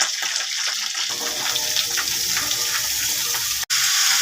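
Food frying in hot mustard oil in a kadai: a steady sizzle that cuts out for an instant about three and a half seconds in and comes back a little louder.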